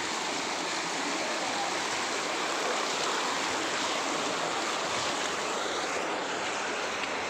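Rushing water of a waterfall and its stream, a steady even rush of noise.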